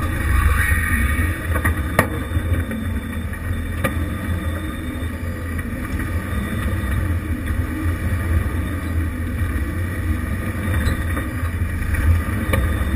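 Engine of a 1988 Jeep Wrangler YJ running low and steady as it crawls over a rocky trail. A few sharp knocks come from the rocks under the tyres and chassis.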